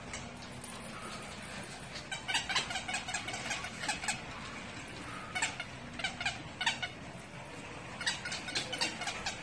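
An animal giving rapid strings of short, sharp calls in three bursts, the first about two seconds in.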